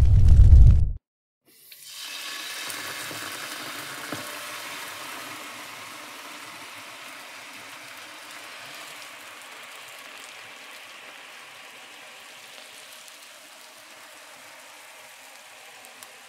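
A deep boom cuts off abruptly about a second in; after a brief silence a steady hiss comes in and slowly fades.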